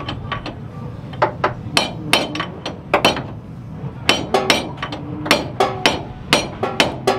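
Hammer striking steel parts of a car's wheel hub, about twenty sharp ringing blows in quick irregular groups, roughly three a second.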